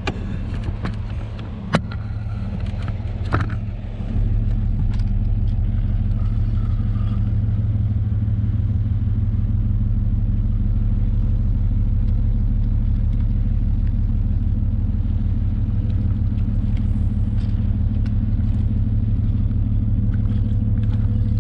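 Steady low engine drone with a constant hum, stepping up in level about four seconds in and then holding even; a few light knocks come in the first seconds.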